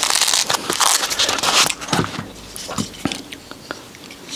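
Crackling and rustling of a Velcro pad and a small plastic camera mount plate being handled and pressed together, loudest in the first second and a half, then a few small clicks.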